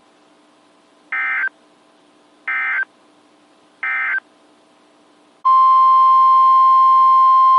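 NOAA Weather Radio EAS data tones: three short, identical buzzing bursts of SAME digital code about a second and a half apart, marking the end of one warning message. Near the end a loud, steady 1050 Hz Weather Radio alert tone begins, announcing the next warning.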